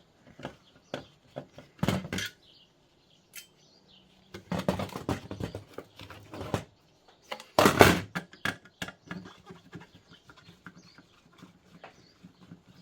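Hands working a circuit board free of a thin client's metal frame: a run of small clicks and taps, with scraping, rattling handling noise about four and a half seconds in and the loudest about eight seconds in.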